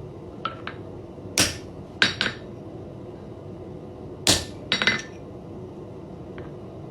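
Hand hammer striking a teardrop punch into the collar of a forged iron hook: two light setting taps, then heavier ringing blows in small groups, about seven strikes in all.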